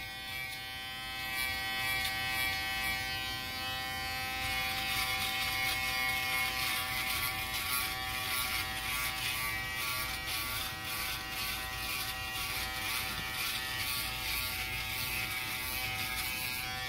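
Kemei KM-2024 electric shaver running with a steady electric buzz as it is worked through a thick beard, with a scratchy crackle over the buzz. It is cutting the hair, though only smoothing it down rather than shaving it close.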